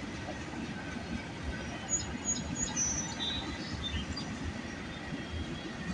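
CN freight train's cars rolling past, with a few brief high-pitched wheel squeals around the middle, under steady rain.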